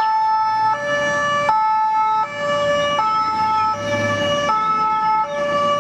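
Swiss ambulance's two-tone siren, alternating evenly between a high and a low note, each held about three-quarters of a second. A low vehicle rumble sits underneath about a second in and again about four seconds in.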